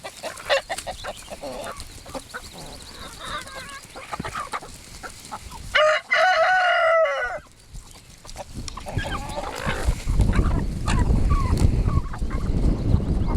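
Chickens clucking as they feed, with a rooster crowing once, about a second and a half long, about six seconds in. A low rumble builds near the end.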